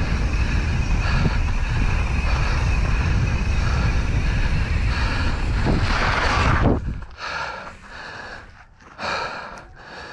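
Wind rushing over a GoPro's microphone, mixed with mountain bike tyres rolling on a dirt trail at speed. About two-thirds of the way in the rush cuts off suddenly as the bike slows, and the rider's heavy breathing takes over in separate breaths every second or two.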